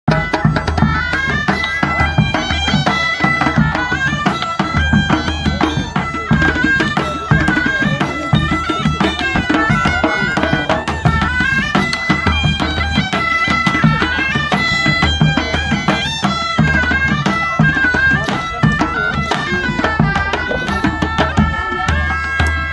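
Folk music: a bagpipe melody over a steady low drone, with a quick drum beat underneath.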